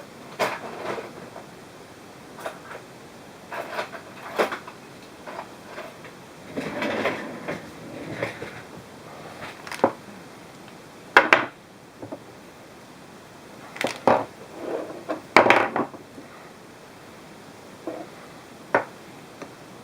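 Irregular clicks, knocks and clatter of hard mount parts being handled and fitted together, with a few sharper knocks in the second half.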